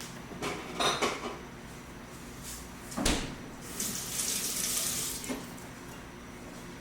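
Canvas and sewing materials being handled: short rustles, one sharp knock about three seconds in, then a high hissing rasp lasting over a second.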